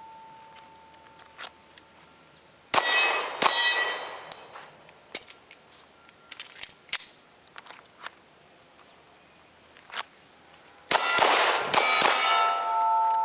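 Glock 19 9mm pistol fired in two short strings, a couple of shots about three seconds in and more around eleven seconds, each followed by steel targets ringing with a sustained metallic clang as they are hit.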